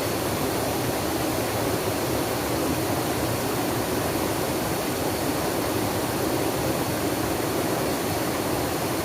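Running water rushing steadily and evenly, with no breaks or separate splashes.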